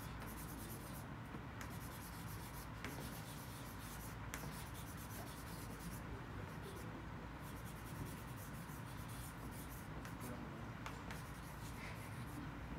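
Drawing tool scratching on a large sheet of paper in short strokes, coming in stretches with brief pauses, as eyebrows are drawn in.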